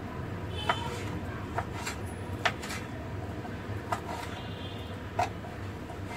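Kitchen knife knocking on a plastic cutting board while raw meat is sliced: about five sharp taps, irregularly spaced, over a steady low hum.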